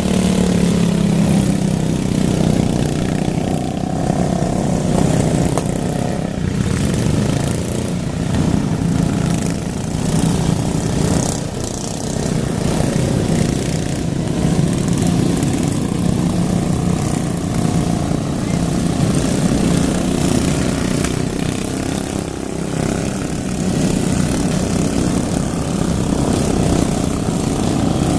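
Racing lawn mower engines running hard and without a break, their pitch rising and falling as they rev.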